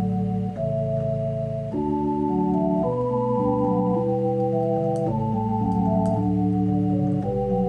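Background music: sustained organ chords changing every second or so.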